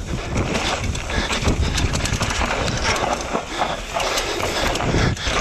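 Downhill mountain bike ridden fast down a dirt and root track: tyres scrabbling over the ground and the bike rattling with many sharp, irregular knocks, over steady wind rush on the bike-mounted camera's microphone.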